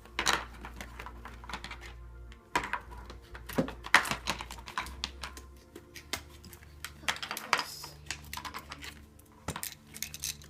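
Quick irregular clicks and rattles of small hard tool parts being handled, such as screwdriver bits in their plastic case, over background music.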